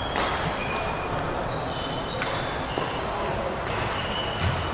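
Badminton rally: sharp cracks of rackets striking the shuttlecock, twice about two seconds apart, over short high squeaks of court shoes on the wooden floor and the thud of footfalls.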